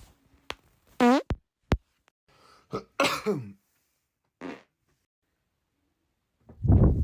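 A string of separate farts. A high, squeaky one falls in pitch about a second in, another falls in pitch around three seconds in, a short one comes at about four and a half seconds, and a loud, low, noisy one comes near the end, with a couple of sharp clicks in between.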